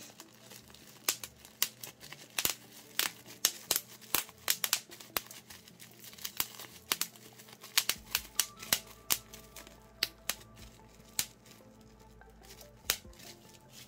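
Bubble wrap being popped between the fingers: a long, irregular run of sharp single pops, several a second, with the plastic crinkling in between.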